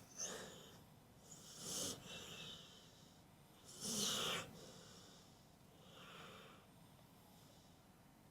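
A pit bull snoring in its sleep: noisy, breathy snores about two seconds apart, the loudest about four seconds in.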